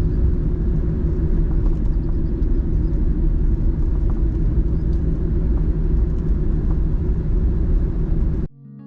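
Steady low rumble of a car driving, with road noise. It cuts off suddenly near the end, and piano music begins.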